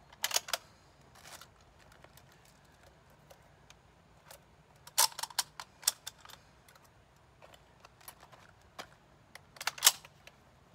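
SKS rifle's action worked by hand while cycling dummy 7.62×39 rounds: sharp metallic clacks of the bolt and rounds come in three clusters, near the start, about five seconds in and near the end, with fainter clicks between.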